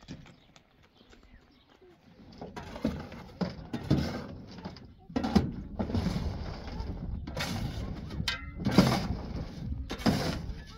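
Gravel being shoveled out of a pickup truck's metal bed. It comes as a run of scraping, rattling shovel strokes, about one every second or two, starting about two seconds in.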